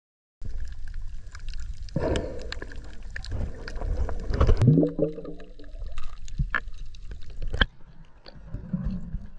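Water sloshing and gurgling around an action camera held at the water's surface, with scattered clicks and knocks. About halfway through, a short pitched sound rises and holds for a moment.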